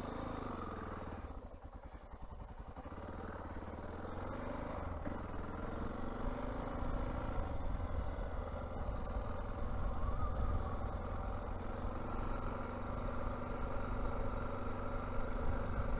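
Honda XR600R's air-cooled single-cylinder four-stroke engine pulling away and accelerating, its pitch rising and dropping a few times in the first several seconds as it shifts up, then running steadily at low road speed. A low wind rumble on the helmet-mounted microphone builds as the bike gathers speed.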